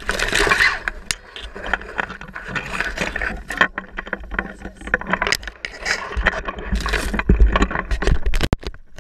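Handling noise from a pole-mounted action camera: irregular scraping, rustling and knocks as it rubs through grass and against harness straps and buckles, with heavier rumbling thumps in the second half.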